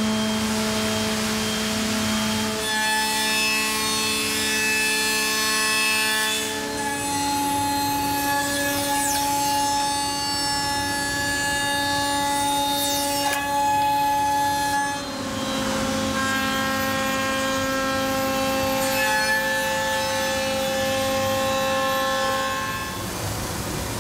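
CNC router spindle milling a bent solid-wood chair back to shape: a steady machine whine over a rushing cutting noise. The whine shifts to new pitches a few times as the cut goes on.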